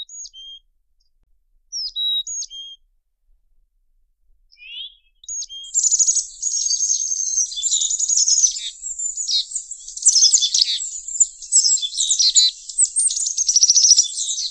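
Songbird singing. A few short whistled chirps sweep up and down over the first five seconds with silent gaps between them. From about six seconds a continuous, rapid warbling song full of trills takes over.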